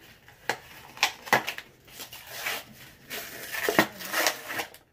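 Clear plastic wrapping on an eyeshadow palette crinkling and tearing as it is pulled open by hand, in irregular bursts of crackling.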